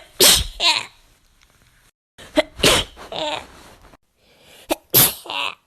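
Three human sneezes in quick succession, one near the start, one about two and a half seconds in and one near the end. Each is a sudden, sharp burst with a short voiced tail.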